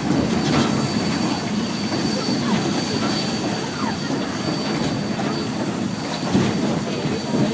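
Steam train rolling along the track, heard from aboard: a steady rumble of the cars riding the rails.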